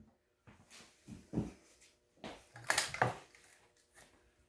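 Light metallic clinks and knocks as a part is worked into place on a lawn mower to hook on a grass bag: a couple of taps about a second in, then a quicker cluster of sharp clicks near the middle.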